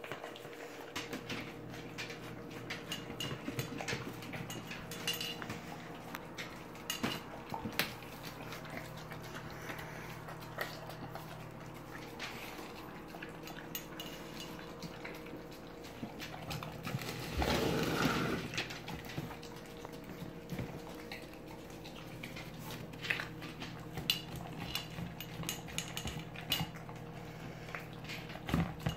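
Pit bull eating from a metal plate: scattered clinks and scrapes of the plate as it licks and chews, with a louder noisy stretch lasting about a second some 17 seconds in. A steady low hum runs underneath.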